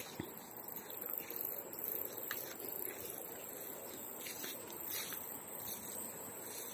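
Riverside ambience: a steady rush of flowing river water under a high, steady insect buzz, with a few short chirps scattered through.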